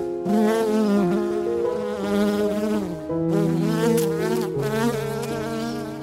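Honeybee buzzing in three long stretches, its pitch wavering up and down, over soft held musical notes.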